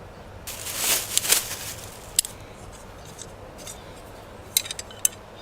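Metal hand tools being handled: a brief rustle, then a few scattered sharp metal clicks and clinks, such as channel-lock pliers and wrenches being picked up and worked.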